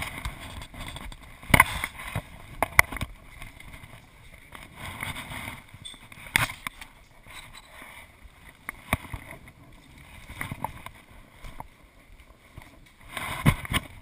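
Scattered sharp clicks and knocks of people handling harness straps and metal rescue hardware in a cable-car cabin, over a low background rumble.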